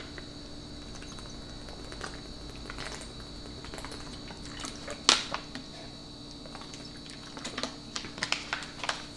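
Thin plastic water bottle crackling and clicking in the hand as she drinks from it, with one louder crack about five seconds in and a run of small clicks near the end.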